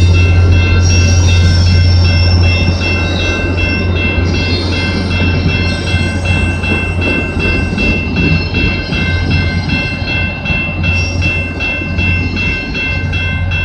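VIA Rail diesel locomotive 6408 pulling a short passenger train past: a loud, steady engine drone with a high ringing on top. It eases off a couple of seconds in as the coaches follow.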